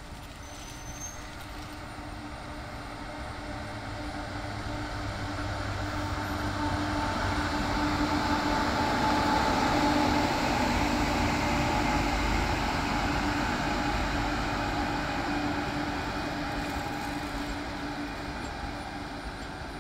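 Indian Railways WAP-7 electric locomotive and its passenger train approaching and passing. The rolling noise and a steady hum grow to their loudest as the locomotive goes by about ten seconds in, then ease off as the coaches roll past.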